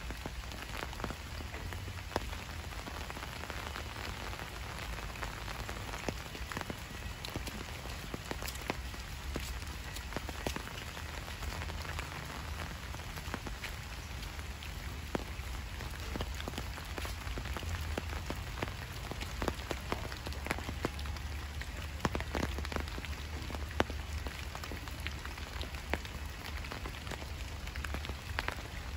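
Steady rain falling, with many separate drops heard striking, over a steady low rumble.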